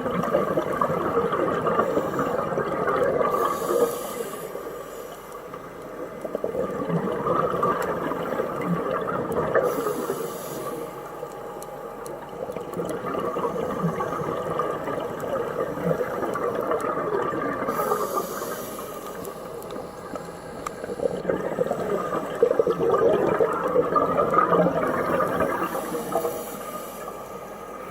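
Scuba diver breathing through a regulator underwater: a short hiss on each inhale, about every seven or eight seconds, and a bubbling rush of exhaled bubbles between them.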